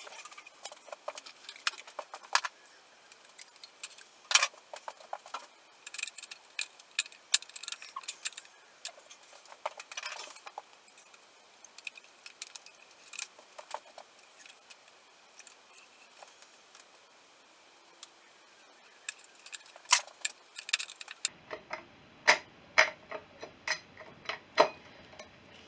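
Irregular light metallic clicks, taps and clinks of hand tools and metal parts being worked on a motorcycle engine, as the cylinder head is loosened. The clinks are sharper and more frequent near the end.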